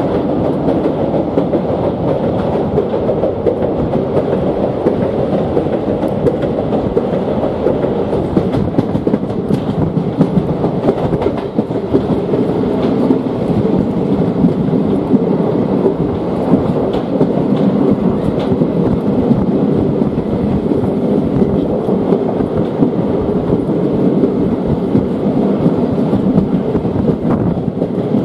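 A steady, loud rumbling noise with no clear rhythm, even in level throughout.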